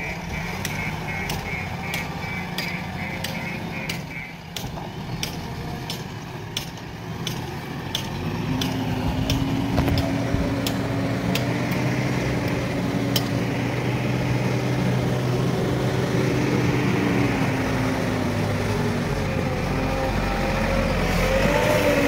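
JCB 3DX Plus backhoe loader's diesel engine running steadily, with regular clicks about twice a second through the first half. About eight seconds in the engine grows louder and a steady hum joins it.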